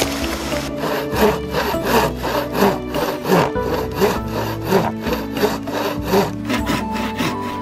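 Traditional wooden frame saw cutting across an old wooden board by hand, in quick, even strokes of about three a second that start just under a second in.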